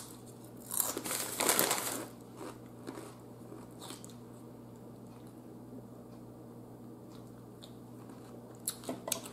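Crunching bites into a tortilla chip chewed close to the microphone, loudest about a second in, then quieter chewing.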